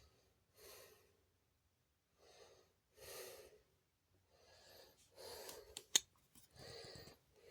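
A person breathing faintly close to the microphone, several soft breaths in and out, with a single sharp click about six seconds in.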